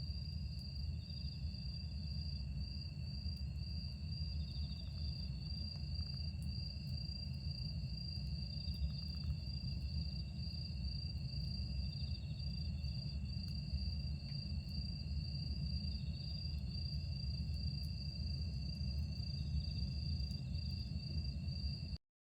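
Night insects singing, likely crickets: a continuous high, fast-pulsing trill with a second steady tone below it, and a softer chirp repeating every few seconds. A steady low rumble runs underneath. The sound cuts off abruptly near the end.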